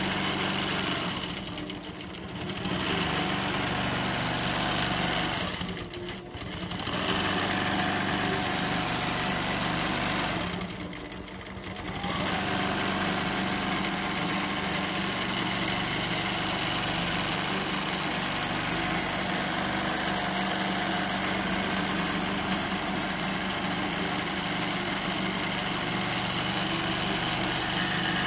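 Innova 26 longarm quilting machine stitching under its Mach 3 robotic autopilot, a steady run of motor and needle. It dips briefly three times in the first half, then runs on evenly.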